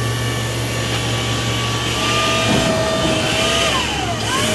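Hyster forklift driving up, its motor whining steadily, the whine dipping and then rising in pitch about four seconds in. Under it a low steady hum drops away about halfway through.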